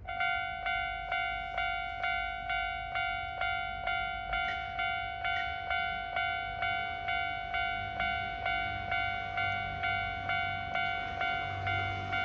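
Japanese railway level-crossing alarm starting up and ringing its electronic "kan-kan" bell tone, about two strikes a second, the signal that a train is approaching and the barriers are coming down. A low rumble grows near the end.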